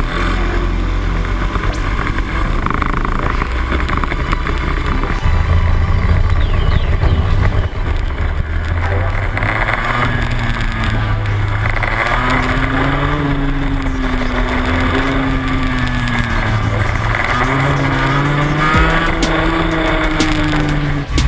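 Two-stroke racing kart engine heard on board at speed, its pitch climbing and falling repeatedly as the driver accelerates out of corners and lifts into the next.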